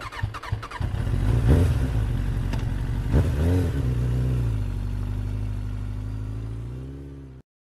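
Bajaj Dominar motorcycle engine running on the move, its pitch rising and falling with the throttle. It then steadies and fades, and cuts off abruptly near the end.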